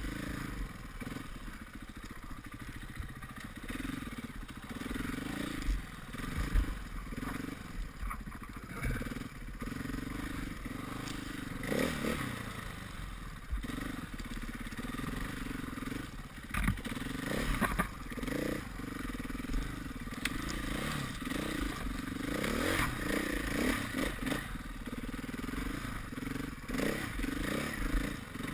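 KTM 500 EXC enduro bike's single-cylinder four-stroke engine running under load, its revs rising and falling constantly with the throttle. There are occasional sharp knocks in the mix.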